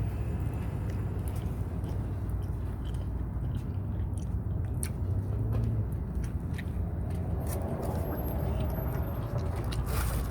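A person chewing a mouthful of a sausage and egg McMuffin close to the microphone, with small wet clicks and smacks scattered through. A steady low rumble runs underneath.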